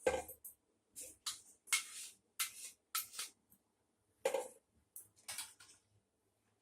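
A series of short, irregular scrapes and clinks of kitchen utensils as ground coconut paste is worked from the mixer jar into a strainer.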